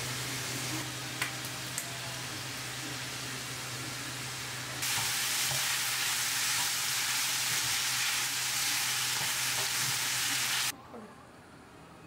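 Beef and garlic scapes sizzling in a stainless steel frying pan as they are stirred with a wooden spatula, with a couple of light spatula knocks about a second in. The sizzle grows louder about five seconds in and cuts off abruptly near the end, over a low steady hum.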